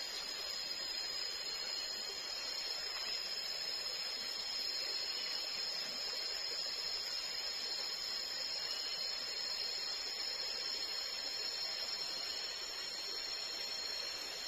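Tropical forest insects, cicadas, droning steadily at a high pitch over a soft, even hiss.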